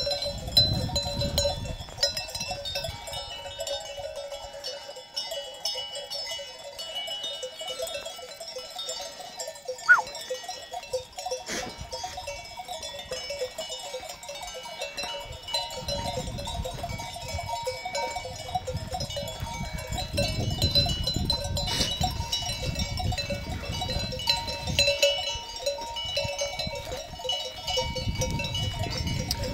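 Many bells on a moving flock of sheep ringing and clanking continuously, with stretches of low rumble in the middle and near the end.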